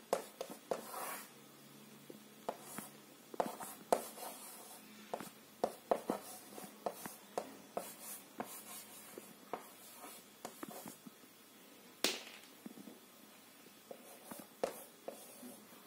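Chalk writing on a board: an irregular scatter of sharp taps and short scratchy strokes as figures are written, with one louder tap about twelve seconds in.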